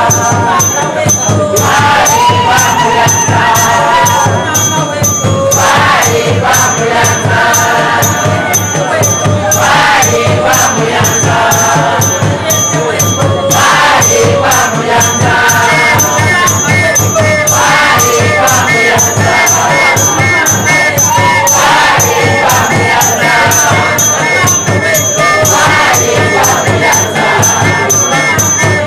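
A group singing a lively song together over a steady percussion beat, with jingling from shakers or bells.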